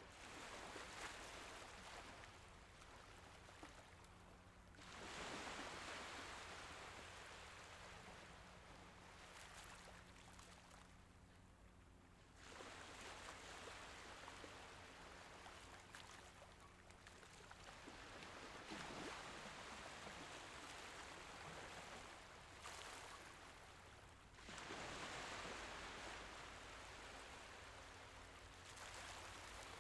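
Faint Mediterranean sea waves washing in gently, each wash swelling and fading over several seconds.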